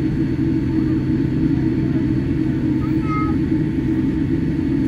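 Steady low rumble inside the cabin of a Boeing 787-8 airliner taxiing slowly to the gate after landing.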